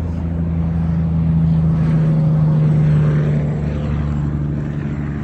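Highway vehicle passing by, a steady engine drone that swells to its loudest about three seconds in and then fades.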